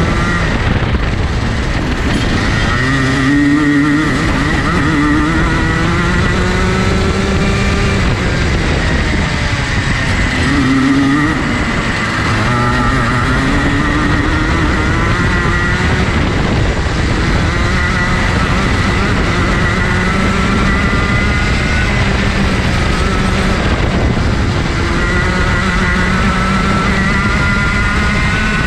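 Junior Rotax kart's 125 cc two-stroke engine running hard through a lap: its pitch climbs steadily along the straights and drops sharply several times as the kart brakes for corners.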